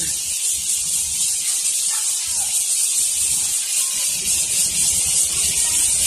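Steady, high-pitched insect chorus, a continuous shrill hiss from the forest.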